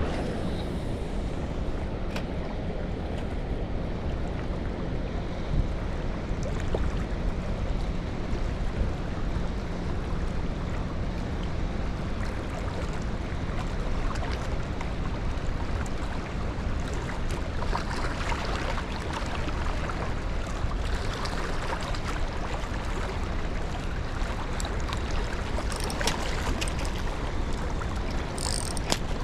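Steady rush of river current with wind buffeting the microphone, and a few faint clicks.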